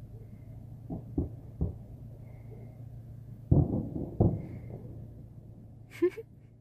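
Distant fireworks going off on New Year's night: a series of about six dull low booms over a steady low hum, the loudest in the middle, with a short sharp click near the end.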